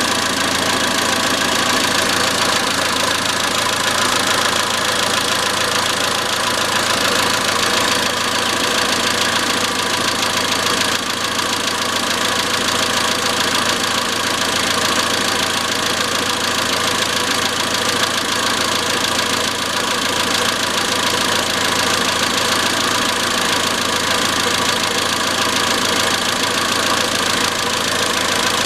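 Iran Khodro Samand's 1.6-litre 16-valve TU5JP4 four-cylinder engine running at a steady speed with a continuous metallic knock.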